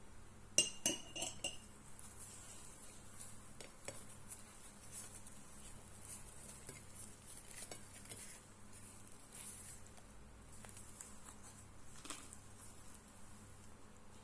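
Metal cutlery clinking against a plate or dish: a quick cluster of sharp, ringing clinks about half a second in, then faint scraping and light taps, with one more tap near the end.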